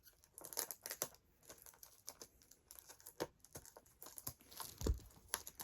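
Faint crinkling and rustling of packaging being handled, with scattered small clicks and a soft bump about five seconds in.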